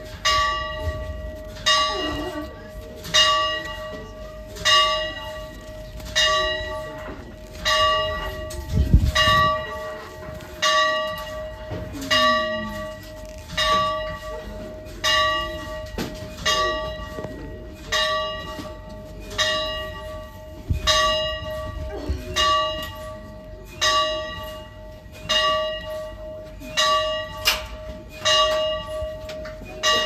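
A single newly blessed church bell tolling steadily, one stroke about every second and a half, each stroke still ringing as the next one lands. Faint crowd voices run underneath, with a dull thump about nine seconds in.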